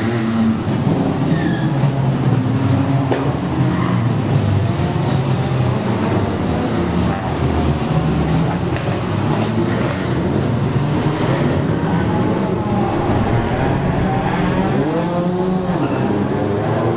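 Several small saloon race cars cornering one after another, their engines revving at high pitch with notes rising and falling and overlapping. Near the end one car's note climbs and then drops as it passes close.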